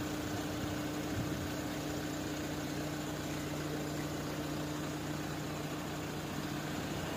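Diesel engine of an Escorts F15 Fighter pick-and-carry crane running steadily as it hoists a load, a steady hum with a lower tone joining about two seconds in.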